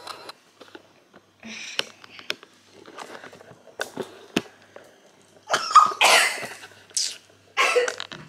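Scattered small clicks and knocks, then three loud, short, breathy bursts of noise in the second half.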